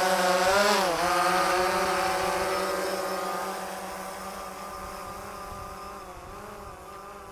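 DJI Phantom 3 Professional quadcopter's propellers and motors whining as it hovers just off the ground. The pitch wavers about a second in, then the sound grows steadily fainter.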